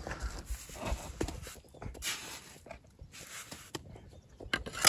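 Mason's trowel scraping and patting wet mortar onto a hollow clay brick: a run of gritty scrapes and small knocks.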